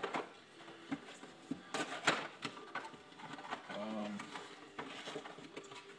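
Packing paper rustling and crinkling and the cardboard box being handled as it is unpacked, with a series of short irregular crackles throughout.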